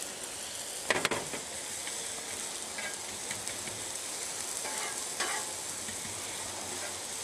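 Diced zucchini, squash, bell pepper and onion sizzling in oil on a hot Blackstone flat-top griddle, with a steady frying hiss. A spatula scrapes and turns the vegetables across the steel plate a few times, loudest about a second in.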